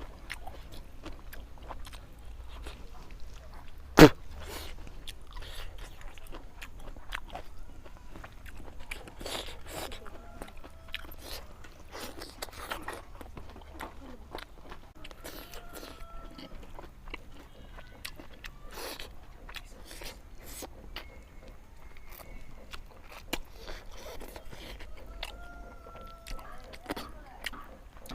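Close-miked eating sounds of a fish curry mukbang: chewing, smacking and many small mouth clicks, with one sharp knock about four seconds in.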